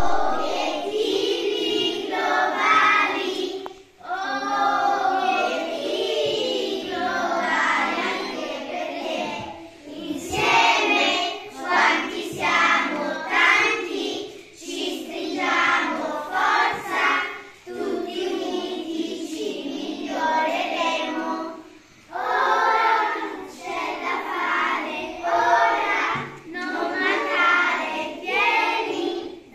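A group of young children singing together, in phrases with short pauses between them.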